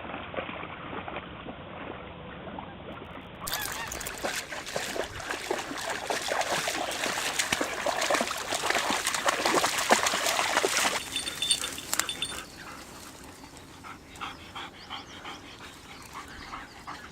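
Sled dogs of a four-dog team yelping and barking, loudest in the middle stretch, then quieter and more scattered near the end.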